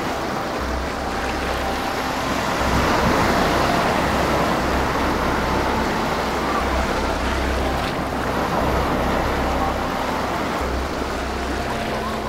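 Ocean surf breaking and washing up the beach, a steady rush of water that swells about three seconds in and eases off later.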